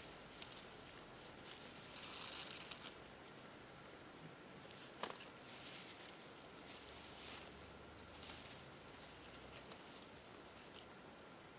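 Faint rustling of grass and leaves, with a few short soft clicks, as chanterelles are cut at the base and picked by hand in thick undergrowth. A steady high-pitched hum runs behind it.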